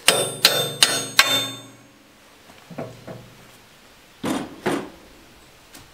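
Ringing metal-on-metal strikes on the steel backhoe thumb as it is fitted: four quick, sharp clanks in the first second and a half, then a softer knock and two duller knocks about four seconds in.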